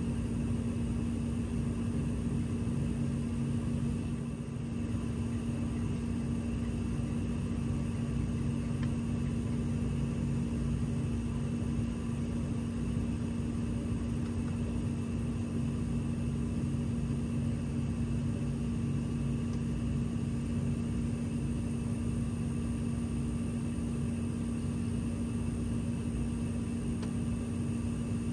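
A motor running steadily, with a constant low hum that holds one pitch throughout.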